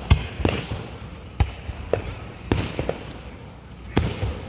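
Fireworks exploding: a string of sharp bangs at uneven intervals, about eight in all, each trailing off in a low rumble.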